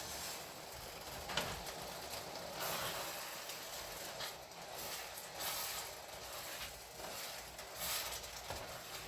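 Beef sauce boiling in a pan on the stove, reducing: a faint, irregular bubbling hiss with small crackles.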